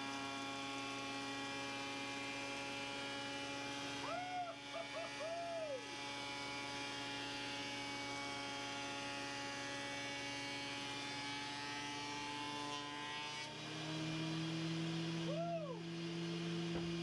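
Thickness planer with its dust collector running, a steady machine hum. About thirteen seconds in the pitch shifts and it grows a little louder. Brief rising-and-falling tones sound twice, about four and fifteen seconds in.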